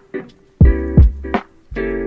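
Background music: held chords over a steady beat of sharp hits.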